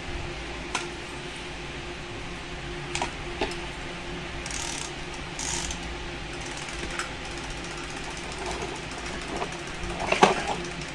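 Plastic toys being handled: scattered clicks and knocks and two brief rustles, over a steady low hum, with a short louder sound near the end.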